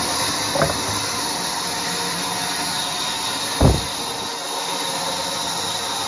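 Sawmill band saw running steadily, a continuous mechanical hiss and hum. A light knock comes about half a second in, and a heavier thump about three and a half seconds in.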